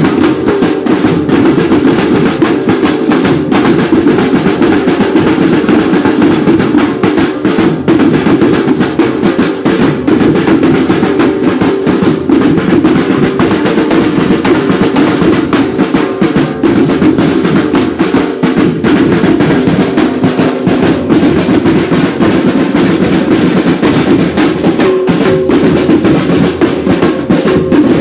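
Marching band drum line of snare drums and marching toms playing a loud, dense, unbroken cadence.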